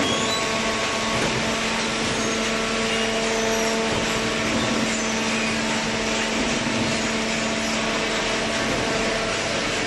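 Automatic hydraulic waste paper baler running: a steady machine hum over an even rushing noise, unchanging throughout.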